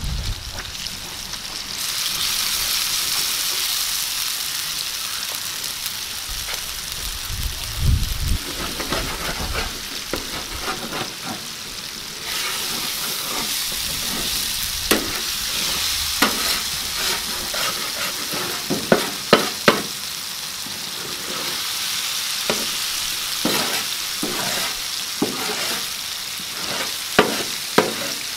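Fish pieces sizzling in hot oil on a large tawa. From about halfway through, a metal slotted turner scrapes and clicks against the pan as the pieces are stirred.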